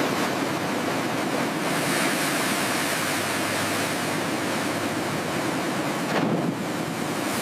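Steady rush of wind and sea surf, an even noise that sets in abruptly.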